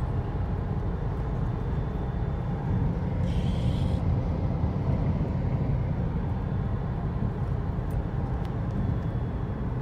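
Steady low road and tyre rumble heard inside the cabin of a CODA electric sedan driving down a race-track straight, with no engine sound.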